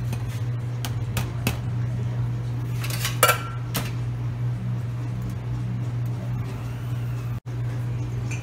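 Clinks and knocks of stainless-steel milkshake cups and utensils being handled on a metal counter, with one loud ringing clink about three seconds in, over a steady low hum.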